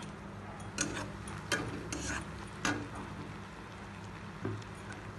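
A spatula stirring and scraping fried onions around a metal kadai. There are a handful of short scrapes in the first three seconds and one more, weaker, near the end, over a steady low hum.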